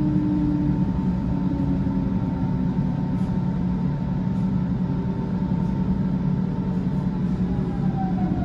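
Passenger train running, heard from inside the carriage: a steady low rumble with a steady whine, and a tone that falls in pitch near the end.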